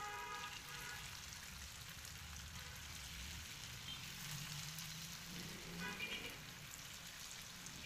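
Grated-potato pakoras sizzling quietly and steadily in shallow oil in a frying pan as more are dropped in.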